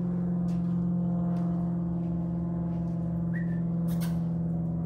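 A steady low hum at one fixed pitch from a running motor or machine, with a sharp click about four seconds in.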